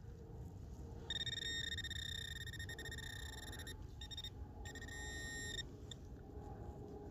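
Metal detector's target tone: a steady, high, buzzing beep starting about a second in, cut off twice briefly near the middle and stopping a little past halfway. It signals metal in the clump of soil being searched, which turns out to be a coin.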